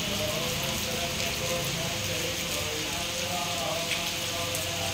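Steady heavy rain falling on a wet paved courtyard.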